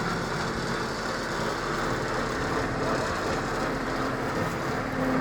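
Fishing boat's engine running steadily, a low even drone mixed with wind and water noise.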